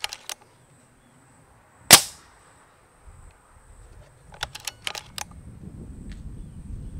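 A shrouded, Q-Tec–silenced Air Arms Galahad HR .22 regulated PCP air rifle fires one shot about two seconds in: a single sharp crack that dies away quickly. About four and a half seconds in there is a run of quick small clicks, and a low rumble rises near the end.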